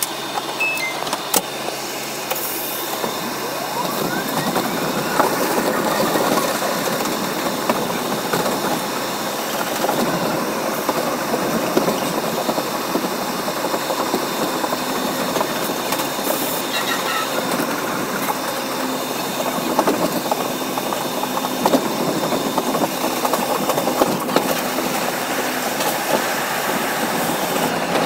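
Bombardier R62A subway train running on the track, a steady rumble and hiss of wheels and car. A rising whine sweeps up about four seconds in.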